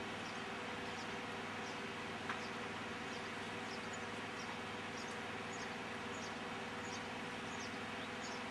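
Steady faint outdoor hiss with short, high chirps repeating roughly twice a second, and one soft click about two seconds in.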